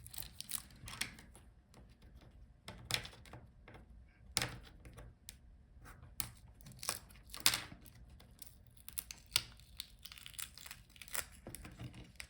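Wi-Fi antenna wires and their adhesive tape being peeled off a laptop's plastic palmrest: irregular tearing and crinkling with scattered small clicks.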